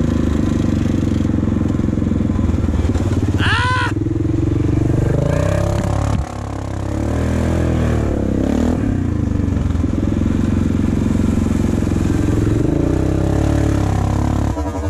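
Yamaha Grizzly 700 ATV's single-cylinder engine running on a trail ride, its pitch rising and falling with the throttle. The engine eases off briefly about six seconds in, then picks up again. A short high whistle-like squeal is heard just before four seconds.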